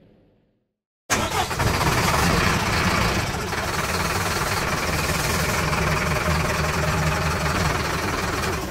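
A loud big-rig diesel engine sound effect cuts in sharply about a second in, after a brief silence, and runs steadily with a heavy low rumble. Before that, the race-track sound fades out.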